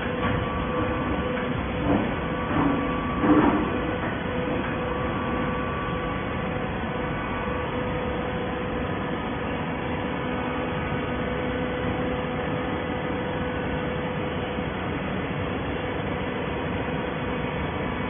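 Horizontal hydraulic baler running in a plant: a steady mechanical hum with a constant tone from the hydraulic power pack, and a few metal clanks in the first four seconds.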